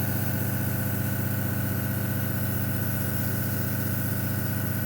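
Airbrush compressor running with a steady hum, with the hiss of air from the airbrush during spraying that stops right at the end.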